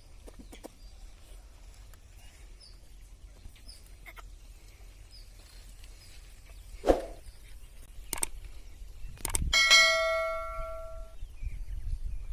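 A metal bell rings once about ten seconds in, a clear ringing that dies away over a second or so, preceded by a few sharp knocks or clanks.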